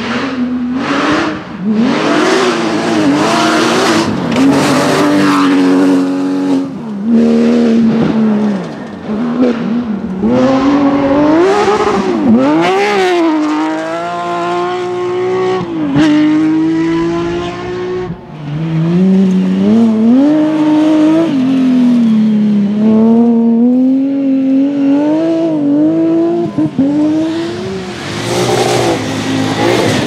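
Porsche 911 rally cars' flat-six engines at full throttle, one car after another on the stage. Each engine climbs hard through the revs and drops back at every gear change, with lifts and blips between.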